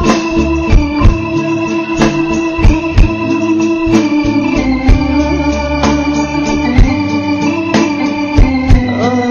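Instrumental opening of an Arabic song: a melody of long held notes that step slowly in pitch, over a regular drum beat.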